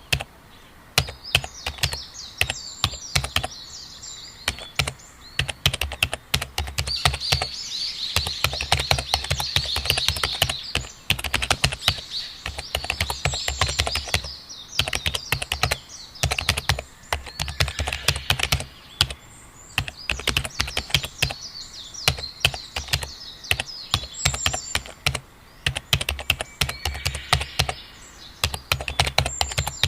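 Computer keyboard typing in fast, irregular bursts of key clicks with short pauses, over birds chirping in the background.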